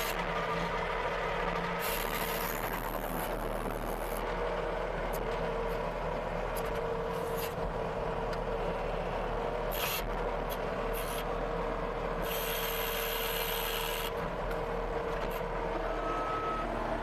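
CASE TR270B skid steer's diesel engine running steadily under work, with several stretches of harsh hissing noise over it. Near the end its reversing beeper starts beeping.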